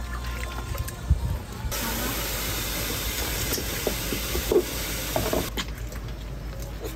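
Water running hard from a tap at a fish-cleaning counter, a loud steady hiss that starts about two seconds in and stops near the end, with a few small knocks on the cutting board. A thump about a second in.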